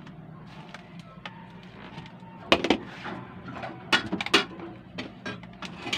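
A few sharp knocks and clatters of kitchenware being handled on a counter, two about two and a half seconds in and a cluster around four seconds, over a low steady hum.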